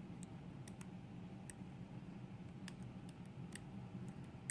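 Faint, irregular metallic clicks of a lock pick working the sliders and pins inside a Millenco Magnum dimple euro cylinder, held in a false set, over a steady low hum.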